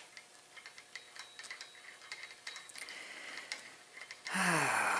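Light, irregular metallic clicks and taps of a VW connecting rod and its cap being handled and worked on, to refit a rod that went on upside down. Near the end comes a louder rushing sound with a falling tone.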